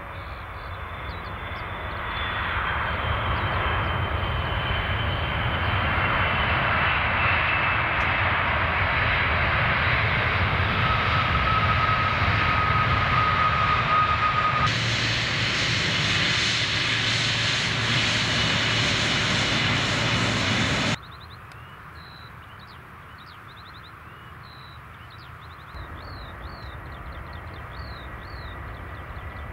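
Boeing 777 twin-engine jets at take-off thrust: a loud, steady jet-engine noise that builds over the first couple of seconds as the aircraft accelerates down the runway. About two-thirds of the way in it cuts off abruptly. What follows is a much quieter, distant jet-engine hum with birds chirping over it.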